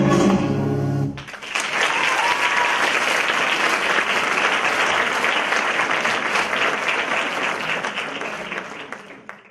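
Arabic-flamenco dance music stops abruptly about a second in, and an audience breaks into applause, which fades out near the end.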